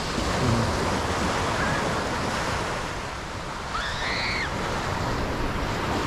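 Sea surf washing onto the beach, with wind on the microphone. A short high-pitched call sounds once, about four seconds in.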